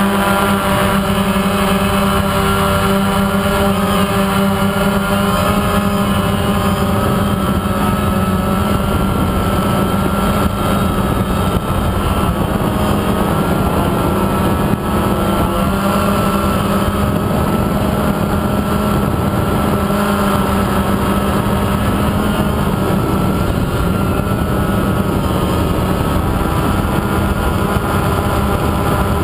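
DJI Phantom quadcopter's electric motors and propellers running, recorded by the camera on the drone itself: a loud, steady buzzing drone whose pitch wavers slightly as the aircraft flies.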